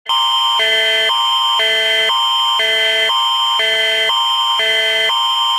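Canadian Alerting Attention Signal (the Alert Ready tone): a loud electronic alarm switching between two chords every half second over a steady high tone, starting abruptly. It announces an emergency alert broadcast.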